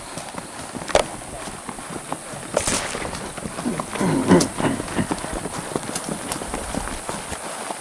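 Several horses' hooves clopping along a grassy dirt trail, with a short low call about four seconds in.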